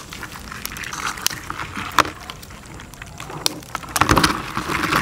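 Live mud crabs being handled: sharp clicks and scrapes of crab shell against a wooden chopping block, with a louder clatter about four seconds in as a hand reaches into a metal pan of crabs.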